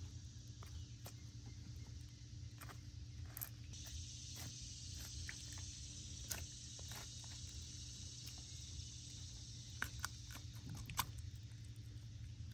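Knife cutting snapping turtle meat away from the carcass: scattered faint clicks and soft cuts. Under them runs a steady low hum and a high insect hiss that grows stronger a few seconds in.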